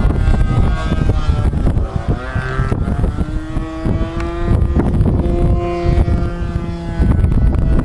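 Model aircraft engine buzzing in flight, its pitch shifting up and down about two to three seconds in, then holding steady. Heavy wind rumble on the microphone runs underneath.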